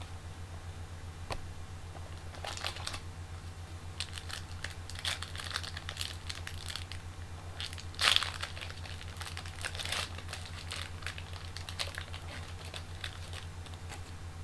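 Foil trading-card pack wrapper being crinkled and torn open, with cards rubbing against each other, in irregular crackles that are loudest about eight seconds in. A steady low electrical hum runs underneath.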